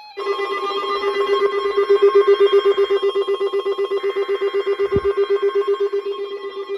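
Weather alert radio receiver sounding its alarm for a required weekly test: a buzzy electronic tone pulsing rapidly at about seven beats a second. A brief low thump about five seconds in.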